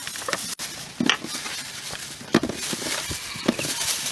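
A plastic bag rustling and crinkling as it is handled, with a few short knocks and taps.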